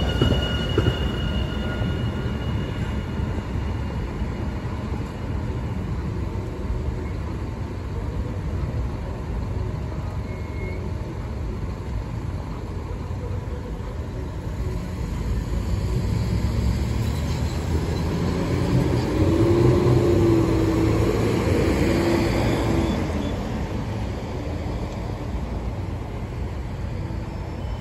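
AnsaldoBreda P2550 light-rail train pulling out of a station. It runs past close by with a thin high whine in the first couple of seconds, then fades to a steady rumble as it moves off. A louder rumble with a low hum swells about two-thirds of the way through and dies away.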